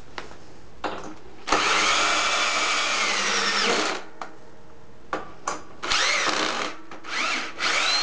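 Cordless drill driving a long bolt through a wooden futon arm into a metal stretcher rail: one long run of about two and a half seconds whose whine drops in pitch near its end, then several short stop-start bursts.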